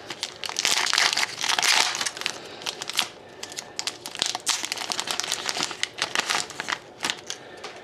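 Foil trading-card pack wrapper crinkling and tearing as it is opened, with cards being handled; loudest in the first two seconds.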